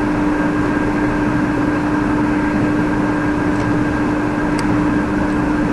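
Steady background machine hum and hiss with one constant low tone, and a couple of faint clicks about three and a half and four and a half seconds in.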